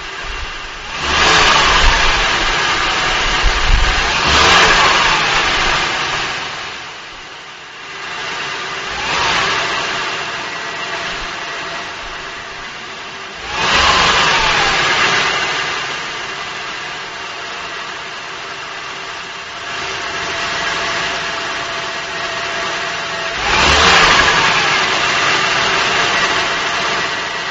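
2005 Acura TL's 3.2-litre V6 idling and revved in about five short throttle blips, each rising sharply and falling back to idle, heard from under the front wheel well. The owner is recording this for a knocking noise after cold start-up, which the dealer and Acura put down to normal valve train noise.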